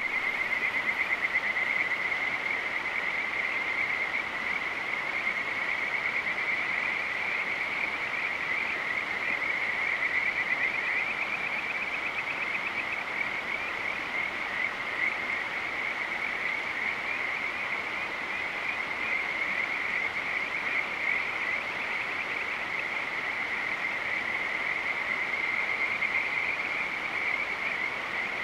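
A continuous high-pitched trilling chorus of night-calling animals, many fast pulsing calls merging into one steady band, over a soft background hiss.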